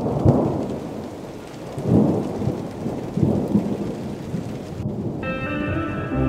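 Heavy rain pouring down, with low rolling thunder that swells three times. Soft music with held notes comes in about five seconds in.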